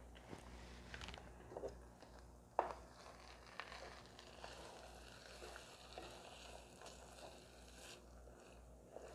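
Wooden spatula stirring thick spaghetti sauce and ground beef in a metal pot: faint scraping with scattered light knocks against the pot, the sharpest about two and a half seconds in.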